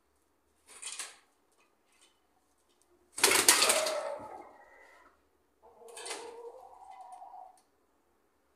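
Chickens: three short bursts of noise, the loudest about three seconds in and trailing off over about two seconds, the last about six seconds in carrying a pitched call.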